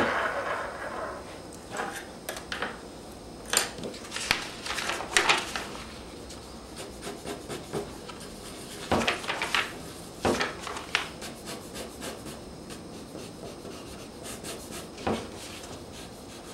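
Pencil sketching on paper: irregular short scratchy strokes, some in quick runs. A rustle of paper being handled fades out about a second in.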